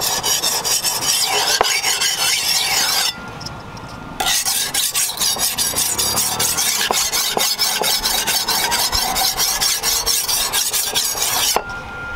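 Leaf-spring steel cleaver blade being honed on a wet whetstone: rapid back-and-forth scraping strokes, with a short pause about three seconds in, stopping shortly before the end.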